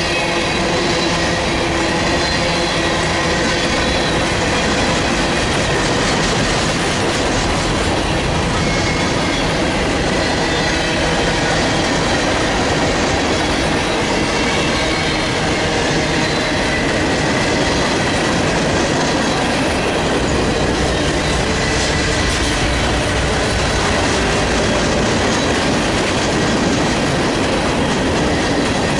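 Freight train of loaded grain hopper cars rolling past at steady speed, a continuous loud rumble of wheels on rail with faint high wheel squeal.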